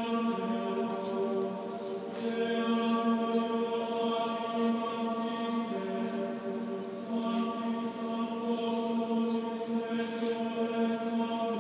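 Slow sung chant, voices holding long steady notes that shift pitch every few seconds.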